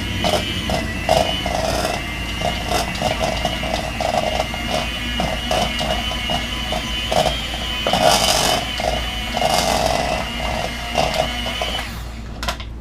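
Electric mixer running steadily with a high motor whine, beating softened cream cheese in a bowl, with uneven knocks from the beaters against the bowl. The motor cuts off near the end.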